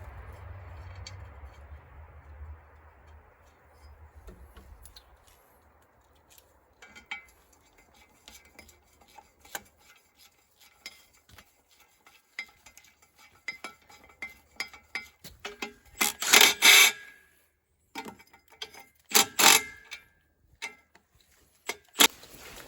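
Metal tools clinking and tapping against metal in a run of small sharp clicks. Two louder bursts, each about a second long, come a few seconds apart near the end.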